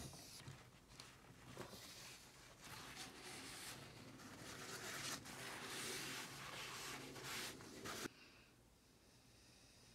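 Hand sanding of a wooden tabletop: sandpaper scratching back and forth in repeated strokes, stopping suddenly about eight seconds in.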